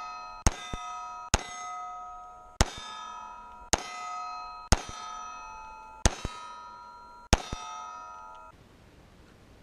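Pistol shots striking a steel target, about seven at roughly one-second intervals, each hit leaving the plate ringing with a clear metallic tone. The ringing cuts off abruptly near the end.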